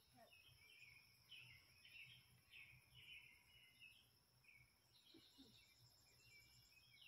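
Faint outdoor ambience: a steady high insect drone under a run of short bird chirps, about two a second, that pause briefly a little past the middle.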